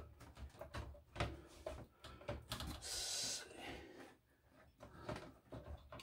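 Faint handling noises of an ASUS ROG Strix motherboard being eased into a PC case: scattered small clicks and knocks of the board against the metal case, with a short hiss about three seconds in.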